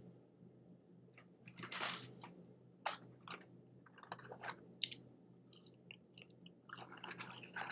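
Soft, scattered rustling of a McDonald's paper fry carton being handled, then chewing of french fries near the end.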